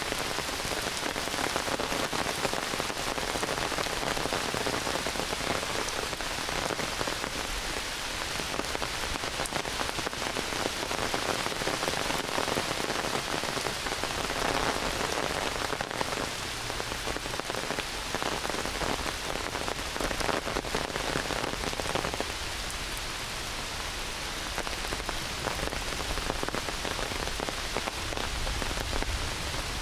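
Heavy rain falling steadily on forest foliage and ground, a dense patter of drops that eases slightly about two thirds of the way through.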